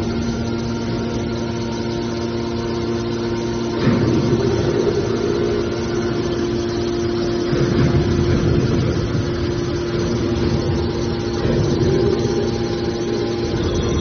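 Scrap car baler's hydraulic power unit running with a steady machine hum. About four seconds in, its tone steps up in pitch and grows louder, and it surges again around eight and twelve seconds.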